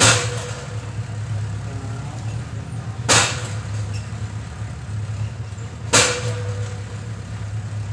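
A steady low hum, with a sharp knock about every three seconds.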